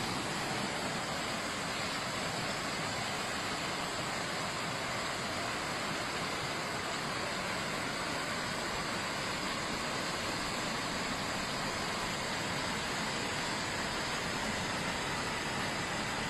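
Floodwater running through a street: a steady, even rushing noise that does not change.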